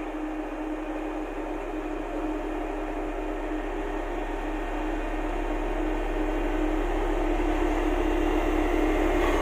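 Heavy construction machine's diesel engine running steadily, a constant hum with a held tone, slowly growing louder.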